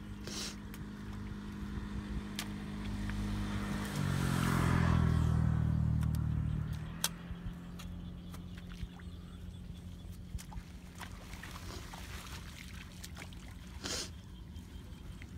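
A motor engine hums steadily. About four seconds in it grows louder and deeper for a few seconds, as a vehicle going past would, then settles back to the steady hum. Scattered short clicks sound over it.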